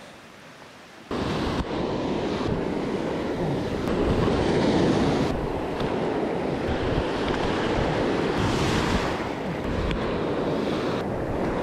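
Ocean surf washing through foamy shallows, with wind blowing on the microphone; it starts abruptly about a second in and stays steady after that.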